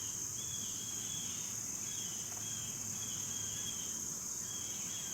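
A steady, high insect chorus of crickets trilling continuously, with a lower, shorter chirp repeating about once or twice a second over it.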